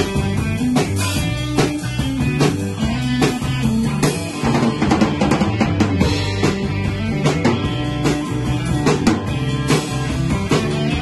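A rock band playing live: a drum kit keeps a steady beat, strong hits a little under a second apart, under electric guitars. Instrumental, with no singing.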